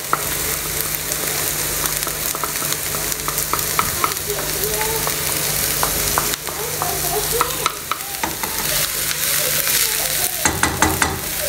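Diced onion and garlic sizzling in hot olive oil in a frying pan, with a wooden spatula scraping and tapping against the pan as they are stirred. A short louder clatter comes near the end.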